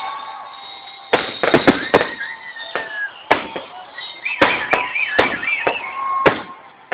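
Aerial fireworks bursting: a rapid, irregular series of sharp bangs and crackles, thickest about a second in and again past the middle, dying away near the end.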